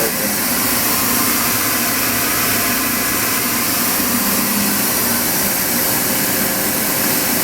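Mori Seiki SL-25Y CNC turning center running a machining cycle: a steady mechanical hiss and hum with no breaks.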